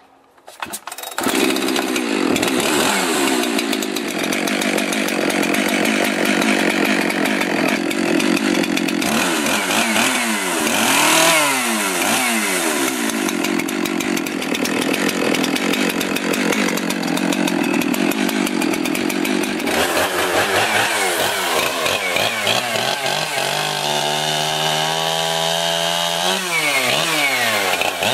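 A 71cc Jonsered 2071 Turbo two-stroke chainsaw catches about a second in, then runs loudly while being revved up and down. The pitch rises and falls repeatedly, and in the last few seconds the engine tone changes speed in steps before revving again. It runs well on a freshly rebuilt carburetor.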